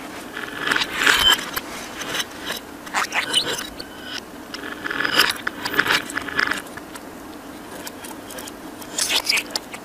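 Pet budgerigar chatter played backwards: bursts of rapid, scratchy warbling and clicks, with a quieter stretch about two-thirds of the way through before a last burst near the end.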